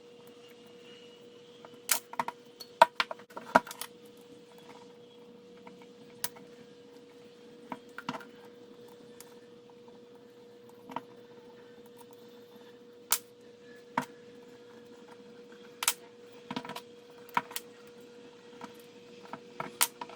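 Irregular sharp metallic clicks and clinks of hand tools and bicycle parts being handled during work on a bicycle in a repair stand, clustered a couple of seconds in, over a steady faint hum.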